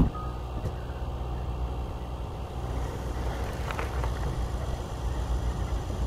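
Steady low rumble, with a sharp click and one short high beep at the start, the last of a run of evenly spaced beeps.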